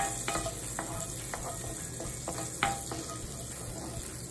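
Butter sizzling as it melts in a cast-iron skillet, with a wooden spatula stirring it and knocking against the pan several times.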